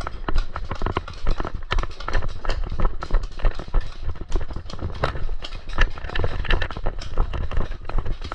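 Running footsteps over grass and brush, a quick irregular tread of thuds and knocks, with the player's gear and camera jostling.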